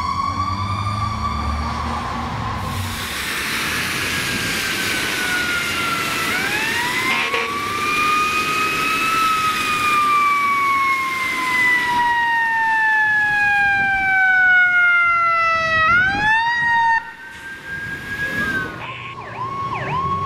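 Fire engine sirens: a long wail that slowly rises and falls over several seconds, then switches to a fast yelp near the end.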